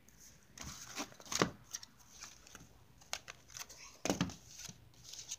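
Handling noise close to the microphone: scattered rustling, light clicks and knocks as things are picked up and moved, with louder bumps about a second and a half in and again about four seconds in.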